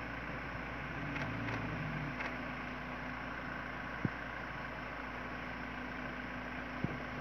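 Safari jeep engine idling steadily, with a single sharp click about four seconds in.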